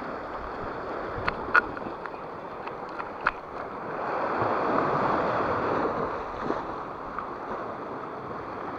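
Sea waves washing and surging over a rocky shore, swelling louder about halfway through. A few sharp clicks sound in the first few seconds.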